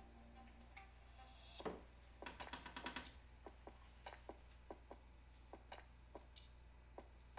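A teaspoon scraping and tapping against a container while curry paste is scooped out: a dull knock, a quick flurry of clicks about two seconds in, then light taps every fraction of a second. A faint low hum runs underneath.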